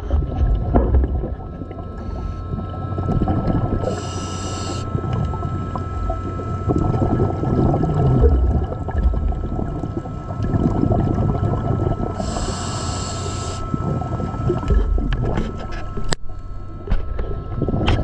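A scuba diver breathing on a regulator, heard underwater: two short hissing inhalations about eight seconds apart, with long rumbling streams of exhaled bubbles between them.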